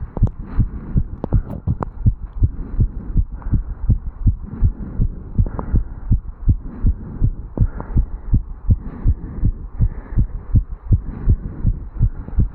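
A man's fast heartbeat after jogging up stairs, picked up at the chest over the mitral valve area: an even run of quick, low thumps with a steady hiss between the beats.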